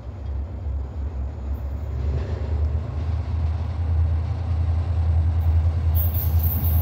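Diesel locomotive approaching on the track, a low rumble that grows steadily louder as it nears. A high hiss joins about six seconds in.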